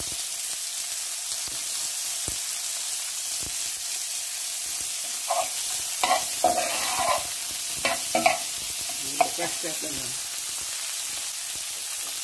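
Onion, sweet pepper and celery sizzling steadily in hot oil in a skillet. A metal spoon stirring the vegetables clatters and scrapes against the pan in a run of strokes through the middle.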